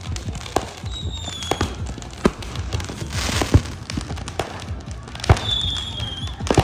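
Fireworks going off: a quick, irregular run of sharp bangs and pops, with a short, slightly falling whistle about a second in and another near the end.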